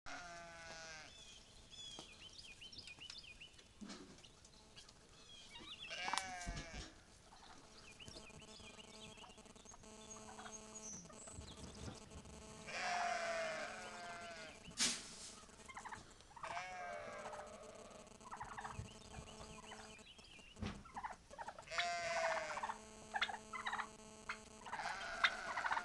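Farm animals calling repeatedly, a call every few seconds, several of them falling in pitch, with a couple of sharp knocks in between.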